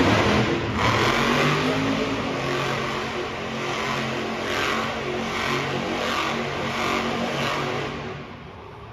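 Monster truck engine revving loudly, then dropping off sharply near the end.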